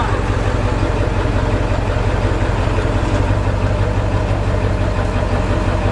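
Ford pickup truck's engine idling with a steady low hum as the truck is slowly backed into a parking space.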